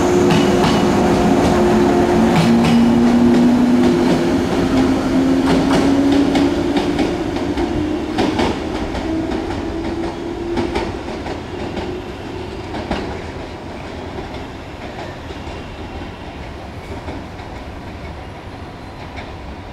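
JR 115-series electric multiple unit pulling out and accelerating. Its traction motors hum with a slowly rising pitch over the first several seconds. The wheels click over the track joints and points, and the sound fades steadily as the train moves off.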